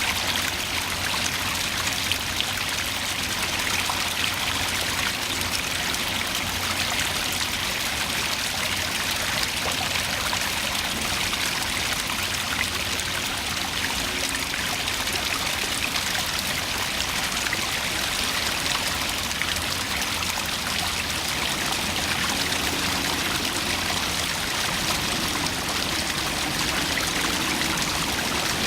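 Small waterfall: water pouring and splashing steadily over rocks, an even rushing with a trickling, splashy texture.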